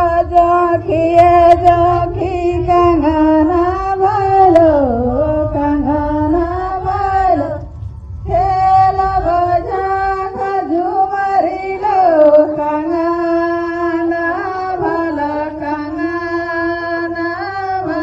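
Women singing a Karma puja devotional song into a microphone: a single sung melody line that breaks off briefly about halfway through and then resumes. A low rumble sits under the first half.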